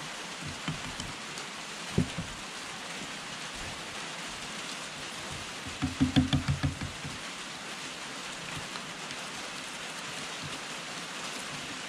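Steady rain-like hiss, with a single sharp click about two seconds in and a short run of rapid low pulses about six seconds in.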